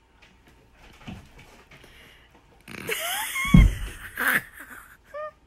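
Rustling and a heavy thump about three and a half seconds in, as a cat jumps down among cushions on a carpeted floor, with a few short high squeaks around it and a brief pitched call near the end.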